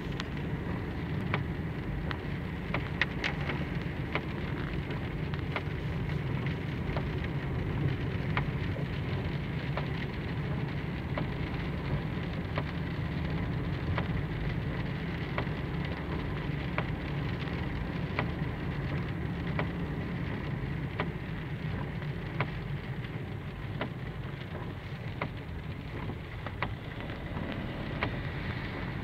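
Steady low rumble of a car's engine and tyres heard inside the cabin while driving, with irregular light ticks of drops striking the windscreen as the wipers run.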